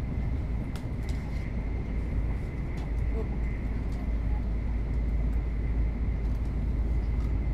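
Passenger cabin of an N700S Shinkansen train under way: a steady low rumble of wheels and running gear with a thin, steady high whine above it, growing slightly louder.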